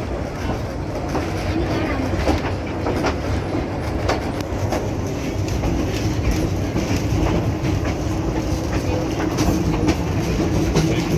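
Narrow-gauge train rolling slowly on jointed track: a continuous wheel-and-rail rumble with irregular clicks as the wheels cross the rail joints.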